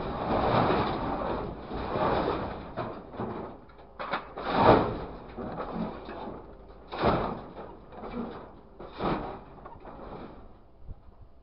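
Scrap metal crashing and scraping into a truck's steel bin as a crane grapple drops its load, in a series of loud clattering crashes that die down near the end.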